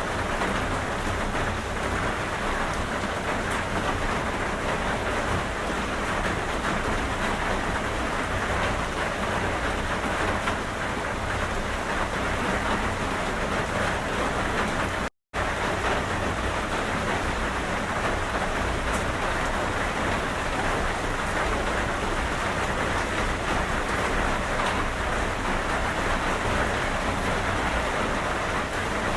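Steady, even rain falling, with a low rumble underneath. The sound cuts out completely for a moment about halfway through.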